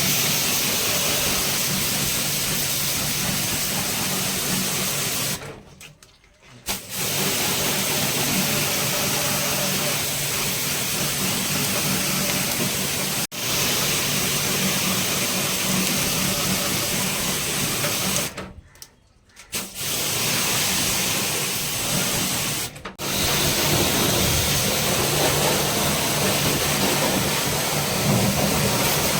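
Electric pressure-washer pump running with its water jet spraying, a steady motor hum under a loud hiss, cutting out briefly three times as the trigger is let go and picked up again.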